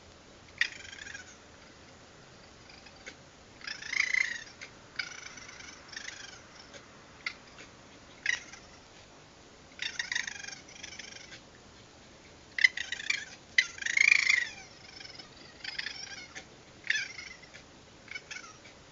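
Raccoons calling, a run of about a dozen short, harsh, high-pitched squalls and chitters, each under a second long. The loudest come about four seconds in and again around thirteen to fourteen seconds in.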